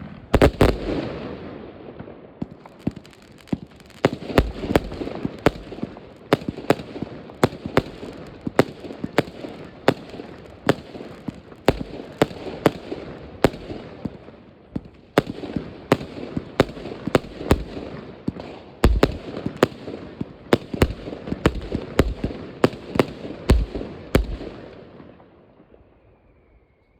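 New Year's Eve midnight fireworks: many sharp bangs going off in quick, irregular succession over a continuous crackle and rumble of more fireworks, easing off near the end.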